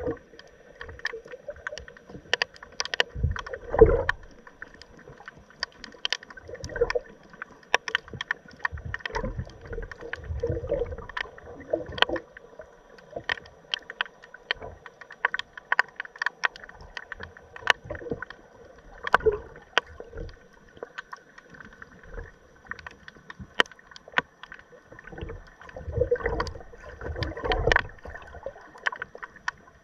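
Underwater sound picked up by a camera on the seabed: irregular sharp clicks and crackles over a faint steady hum, with low rumbling water movement swelling about four seconds in and again near the end.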